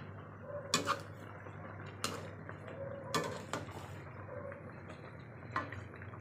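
A metal utensil knocking and clinking against a cooking pot, about six sharp knocks spread out, over a low steady hum.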